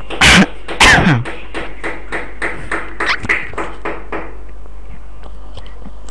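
A rapid series of knocks, about three to four a second, that stops about four seconds in. Two much louder bangs come about half a second apart near the start, all over a steady electrical hum.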